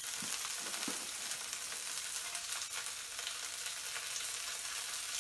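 Bánh xèo batter, a thin rice-flour crepe, sizzling steadily in a nonstick wok as it crisps. A couple of faint soft taps in the first second.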